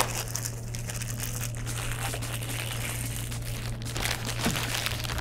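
Plastic packaging bag crinkling continuously as a bagged console cable is handled and unwrapped by hand.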